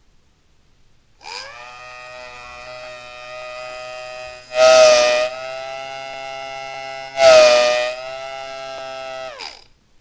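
A 3D-printed mini Thunderbolt-style electromechanical siren with a single-tone five-port chopper spins up on its small electric motor and holds a steady, many-harmonic wail. Twice, about halfway through and again a couple of seconds later, air is blown by mouth into its intake, adding a loud rush of breath and briefly lifting the pitch. Near the end the motor cuts and the tone falls away as it winds down.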